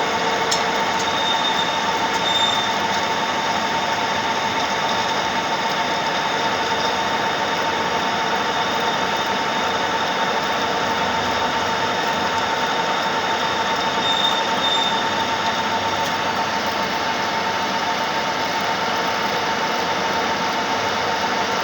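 Metal lathe running steadily with a constant whine, a knurling wheel rolling against the turning workpiece to press a 1.5 mm pitch knurl.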